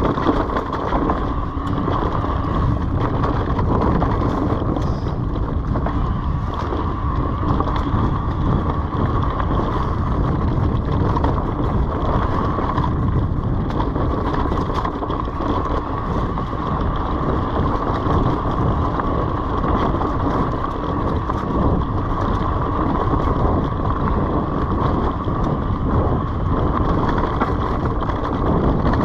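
Orbea Wild FS H25 electric mountain bike ridden over dry leaf-covered dirt singletrack. Its tyres rumble steadily over leaves and dirt, with constant small rattles from the bike, a steady high whine of the pedal-assist motor and some wind on the microphone.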